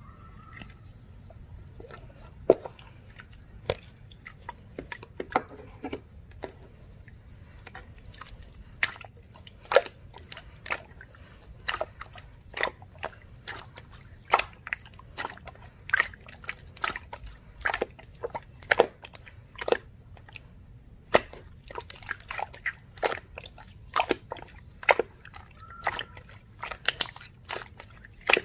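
Clear slime being squeezed and pressed by hand, giving sharp wet clicks and pops at an irregular pace, about one or two a second, sparse at first and busier after the first several seconds.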